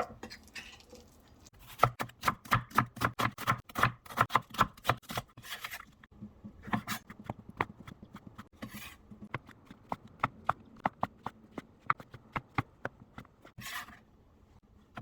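Knife chopping on a cutting board: quick strikes about five a second for a few seconds, then slower, scattered strokes.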